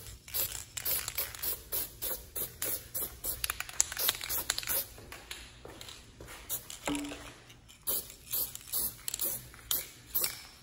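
Aerosol can of Krylon Premium Metallic chrome spray paint hissing in many short bursts as a coat is sprayed on.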